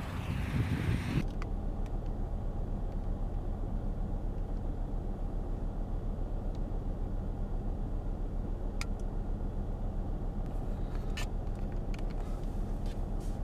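A vehicle engine idling: a steady low rumble that pulses evenly. It is preceded in the first second by a burst of wind noise on the microphone that cuts off suddenly.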